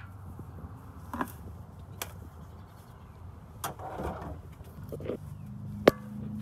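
Hands handling the wiring of a 2011 Ford F450's exhaust gas temperature sensor: a few scattered knocks and rustles, then one sharp, loud click near the end as the sensor's electrical plug latches into its connector. A low steady hum runs underneath.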